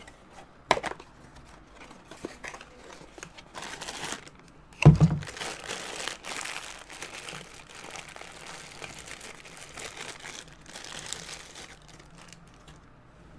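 A small cardboard blind box being torn open and the crinkly wrapping inside crumpled and unwrapped, with a few sharp clicks early and one loud thump about five seconds in.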